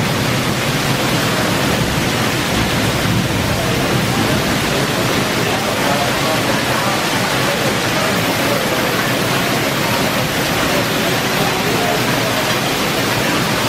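Heavy rain, with water pouring off a roof edge in streams and splashing onto a tiled patio: a loud, steady rush of water.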